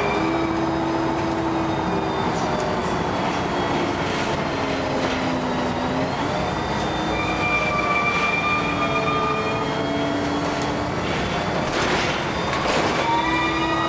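LiAZ 6213.22 articulated city bus driving, heard from inside the passenger cabin: a steady drivetrain rumble with several whining tones that hold for a few seconds and then step to a new pitch as the speed changes. A few light rattles come near the end.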